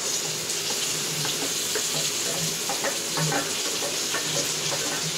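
Chopped small onions (shallots) sizzling in hot oil in a frying pan, a steady hiss dotted with small crackles that starts as they hit the oil.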